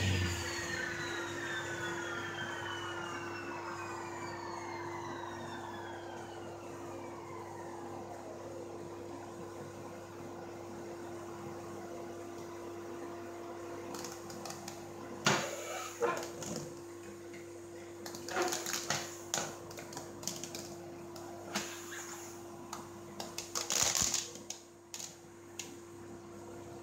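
Table saw blade winding down after switch-off, a falling whine that fades over about eight seconds, over the steady hum of the cyclone dust extractor. From about halfway on come knocks and clatter as the overhead dust hood's plastic shroud is moved and adjusted by hand.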